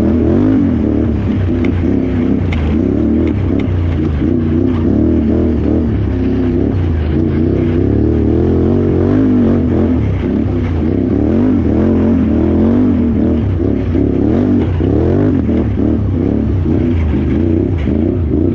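Can-Am Renegade XXC 1000R ATV's V-twin engine revving up and down continuously under race riding, its pitch rising and falling every second or so.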